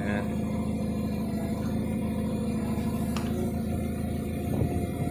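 Forklift running with a steady low hum. A couple of light knocks come near the end.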